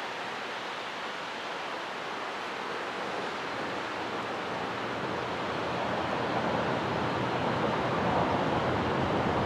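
A steady, even outdoor hiss with no distinct tones, slowly growing louder.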